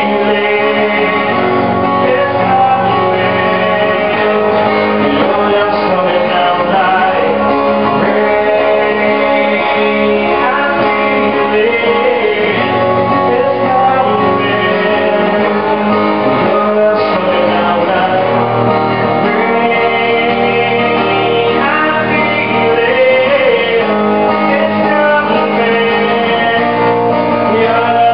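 A live song performance: a singer with a plucked guitar, singing and playing continuously at a steady loudness.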